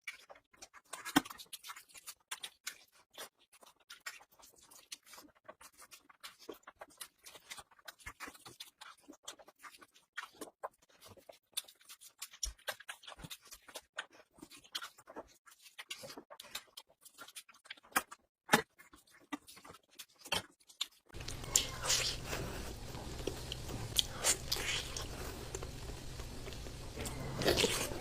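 Close-miked chewing and mouth sounds of someone eating, with irregular wet smacks and small clicks. About twenty seconds in, a steady low hum and hiss starts under the chewing.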